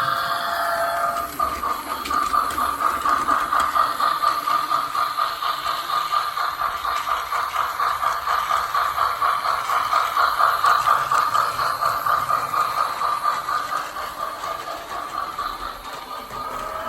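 Plarail C62 toy steam locomotive's sound unit playing rhythmic steam-engine chuffing as the battery-powered train runs on plastic track; it grows quieter near the end.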